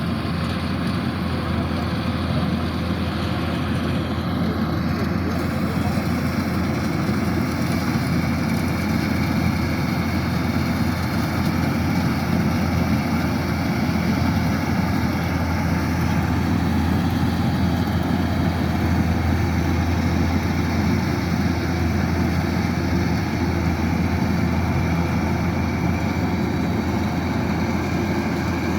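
Kubota DC-108X combine harvester's diesel engine running at a steady speed, a constant low machine drone with no change in pitch or level.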